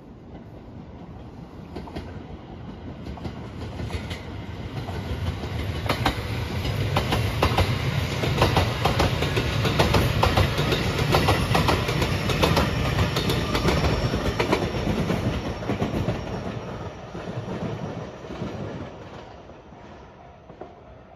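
Rapid Marine Liner electric train, made up of JR 223-5000 series cars, passing by. Its rolling noise builds up, is loudest for several seconds in the middle with quick clickety-clack of wheels over rail joints, then fades away.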